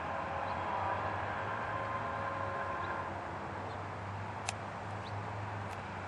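Distant rumble of an approaching train mixed with street traffic, with a faint steady tone in the first three seconds. A single sharp click comes about four and a half seconds in, and there are a few short chirps.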